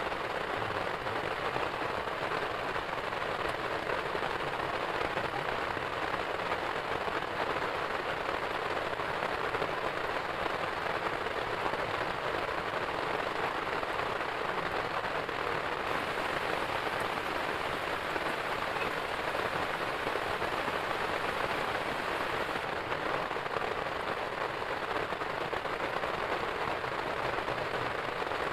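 Heavy rain falling in a steady downpour, an even unbroken rushing.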